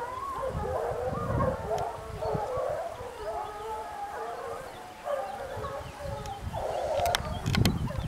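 A pack of hunting hounds baying in chorus while running a wild boar, their calls overlapping without a break, with a few sharp clicks near the end.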